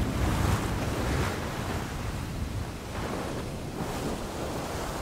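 Sea waves washing around a sailing yacht under way, with wind on the microphone and several rushes of water, the whole sound gradually fading lower.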